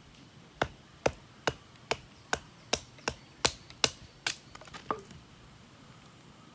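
A hand tool striking repeatedly: about ten sharp blows, roughly two and a half a second, then a few lighter knocks just before it stops.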